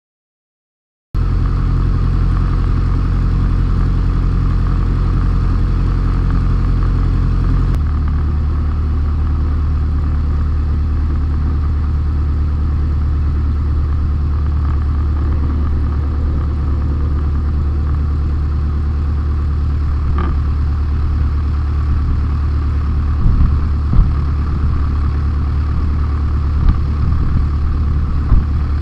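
Light aircraft's piston engine running steadily inside the cockpit, cutting in abruptly about a second in; its pitch shifts slightly about eight seconds in, and a few short thumps sound near the end.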